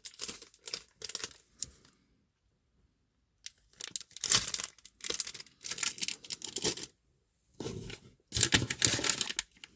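Plastic packaging being crinkled and torn open by hand, in several bouts of crackling with a short silent gap partway through.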